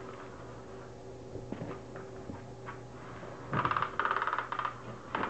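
Battery-powered cat toy whirring as its wand sweeps under the fabric cover: a faint hum with a few light clicks, then from about three and a half seconds in a loud rattling buzz that comes in several short bursts.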